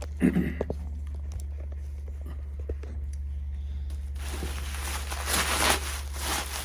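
Plastic packing material crinkling and rustling as it is pulled away from a pair of hi-hat cymbals, starting about four seconds in, with a few short handling knocks near the start. A low steady hum runs underneath.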